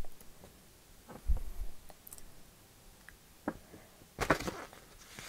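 A paper booklet being handled: scattered soft taps and clicks, a dull thump, and a short rustle of a page turning near the end.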